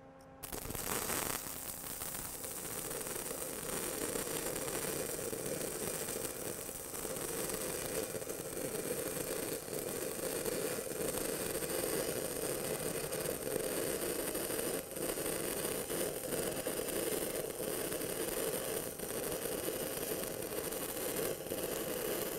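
Stick-welding arc from a 6010 electrode running a bead on a steel pipe joint: the arc strikes about half a second in, then crackles steadily. The arc is held short and tight with steady travel speed, the correct technique for 6010.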